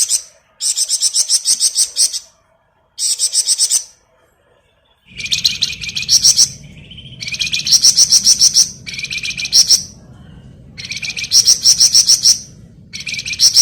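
Flamboyan songbird singing its rapid chattering 'ngebren' song: high-pitched phrases of fast, evenly spaced notes, each about a second long, repeated after short pauses. A faint low hum comes in about five seconds in.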